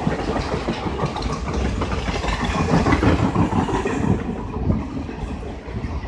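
Blue Indian Railways passenger coaches rolling past, their wheels clattering on the rails over a steady rumble. The sound eases off a little over the last couple of seconds.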